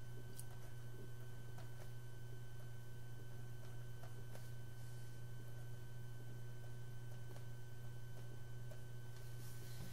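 Steady low electrical hum with a faint steady high whine above it, and a few faint ticks from a stylus on a writing tablet as handwriting is drawn.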